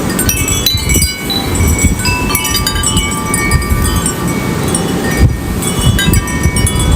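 Wind chimes ringing busily and irregularly in strong gusts, with wind rumbling on the microphone underneath.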